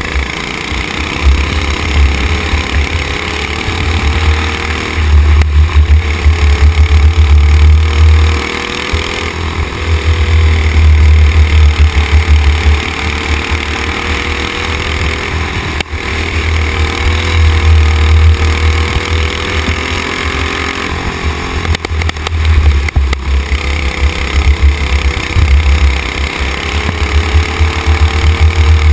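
Racing kart engine running hard through a lap, its pitch rising and falling as the driver accelerates and slows for corners, with heavy wind buffeting on the onboard microphone.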